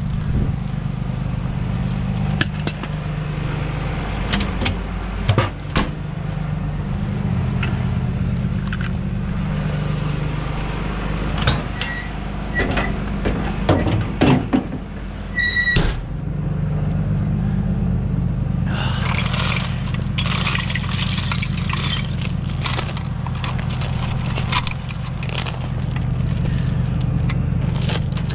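Tow truck engine idling steadily, with scattered knocks and clanks and a few short beeps around the middle. Over the last third, steel tow chains rattle and clink as they are handled on the truck's wheel-lift.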